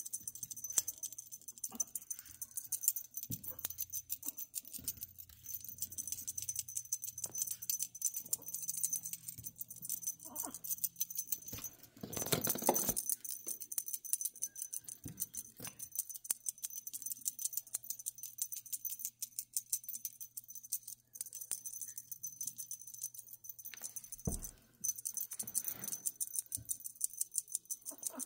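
Light background music with a fast, even rattling beat, broken by a few thumps and rustles, the loudest a burst of rustling about halfway through and a low thump near the end.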